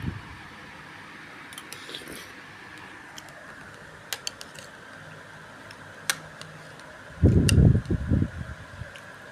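Sparse light clicks of cutlery against dishes over a steady fan hum. A louder, low muffled burst lasting about a second comes near the end.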